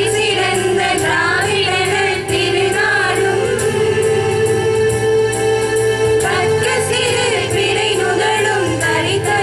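A group of women singing a song together, amplified through a microphone and PA, with long held notes over a light steady beat.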